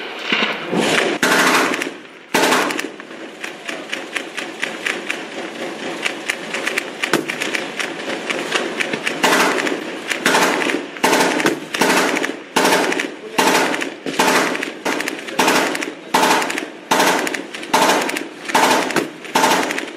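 Gunfire: a stretch of rapid crackling automatic fire, then from about nine seconds in loud single shots at a steady pace of roughly one every 0.7 seconds, each echoing away.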